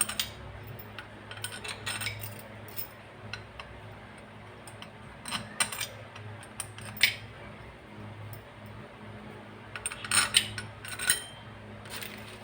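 Light metallic clicks and clinks of screws and hand tools on the compressor's metal cover as the cover screws are put in and tightened. They come in scattered bursts, busiest about five to seven and ten to eleven seconds in.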